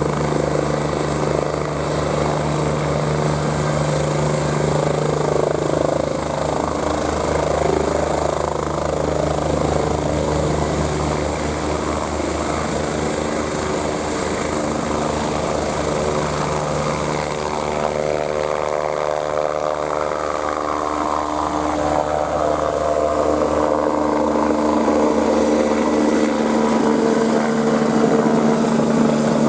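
Eurocopter EC-145 (MBB BK117C-2) helicopter running at full power for take-off: a steady high turbine whine from its twin turboshaft engines over the fast beat of the rotor. The engine tones shift partway through, and the sound grows louder near the end as the helicopter lifts off.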